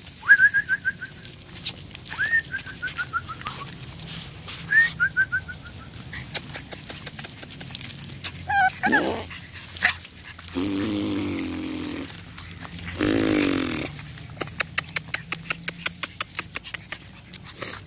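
Boston terrier puppies whining with thin, high, falling cries, three times in the first six seconds. Fast runs of light clicks at about five or six a second come in twice, and two longer, lower sounds come near the middle.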